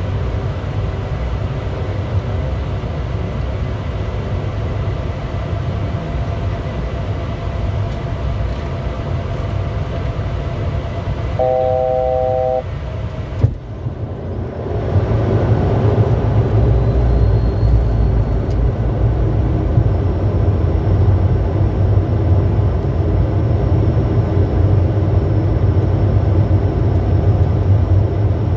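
Steady rumble and rush of airflow and engines inside the cockpit of a Bombardier Challenger 350 business jet on approach. About halfway through, a chime of three tones held together sounds for about a second, followed by a sharp click, and then the rumble and rush grow louder and stay louder.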